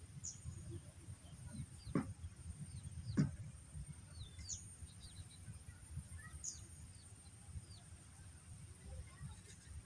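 Rural outdoor ambience: small birds giving short, falling chirps over a low rumble and a steady high whine. Two louder calls sweep sharply down in pitch about two and three seconds in.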